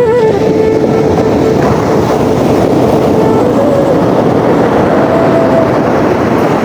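Sea waves washing in a steady roar, under soft music whose slow melody is a few long held notes.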